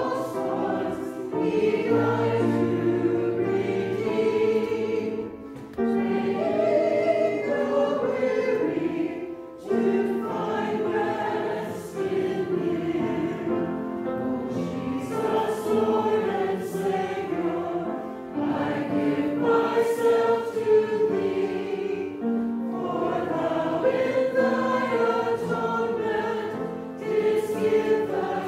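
Church choir singing together in sung phrases, with brief breaks between phrases a few times.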